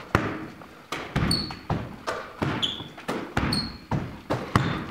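A basketball bouncing repeatedly on a hardwood gym floor, each hit echoing, with several short, sharp sneaker squeaks in between.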